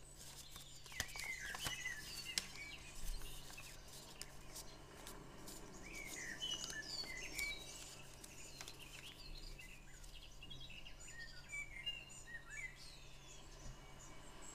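Small birds chirping in the background, a string of short, quick calls. About one to three seconds in, a few sharp crinkles and clicks as sheets of folded origami paper are handled.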